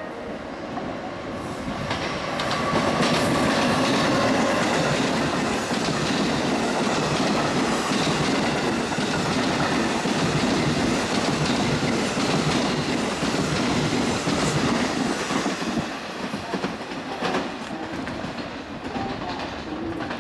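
A train passing at speed: its noise swells over the first couple of seconds, stays loud with a rapid clatter of wheels over rail joints, and eases off near the end.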